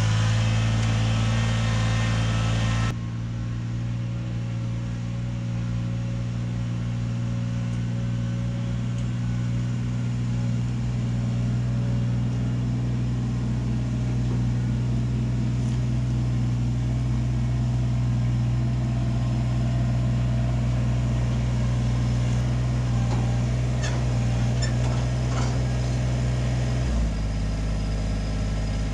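Kubota BX23S compact tractor's three-cylinder diesel running steadily at working throttle while moving a hitched dump trailer. Near the end the engine note steps down to a lower speed.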